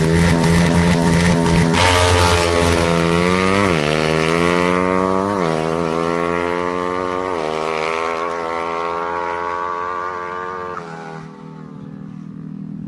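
Drag-racing motorcycle engine at full throttle, its pitch climbing in each gear and dropping sharply at three upshifts, then fading away near the end as the bike pulls off down the strip.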